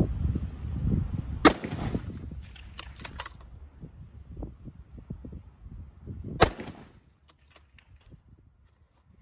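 Two shots from a muzzle-braked 6mm Creedmoor bolt-action rifle, about five seconds apart, each a sharp crack with a trailing echo. Between them comes a quick run of metallic clicks as the bolt is cycled, and a few more clicks follow the second shot.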